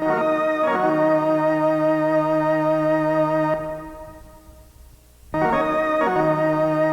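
Music: a keyboard with an organ-like sound holding sustained chords. The first chord shifts just under a second in, then fades away from about three and a half seconds in, and a new held chord comes in abruptly a little after five seconds in.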